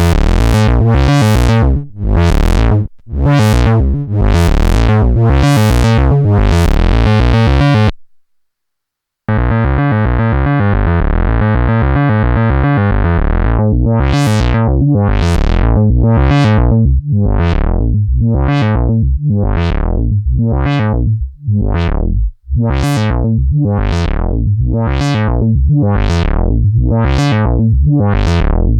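Eurorack modular synth patch: an E350 Morphing Terrarium wavetable oscillator droning through a voltage-controlled filter whose cutoff an LFO sweeps open and shut, giving a rhythmic wah-like pulse a little faster than once a second. The sound cuts out for about a second a third of the way in, returns with the filter held still for a few seconds, then the sweeping pulses resume.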